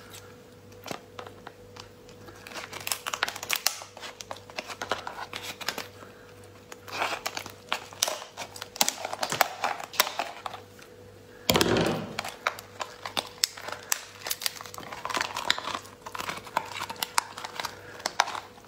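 A large cooked lobster's shell being cracked and pulled apart by hand: irregular clusters of crackling, snapping and crumpling, with one louder, heavier crack about halfway through.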